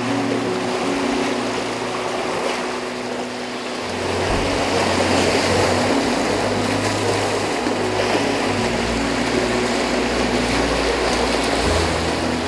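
Fast-flowing river water rushing and splashing as elephants move and play in it, over background music of sustained low notes that change every few seconds.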